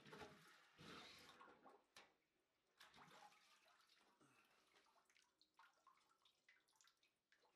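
Liquid sloshing in a barrel as a steel helmet in a wire cage is worked in it and lifted out, then drips and trickles falling back into the barrel.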